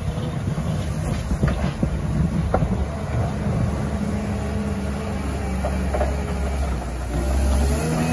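CAT 930K wheel loader's diesel engine running steadily as it pushes a snow bank with its blade, with a few clunks in the first few seconds. It grows louder about seven seconds in as the loader comes close.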